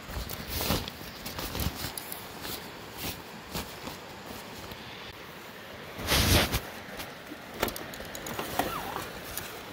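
Backpack and its nylon rain cover being handled: fabric rustling and crinkling with small clicks and knocks. The loudest rustle comes about six seconds in.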